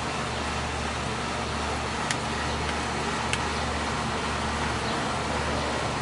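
Steady outdoor background rumble, like distant road traffic, with two short faint ticks a little over a second apart.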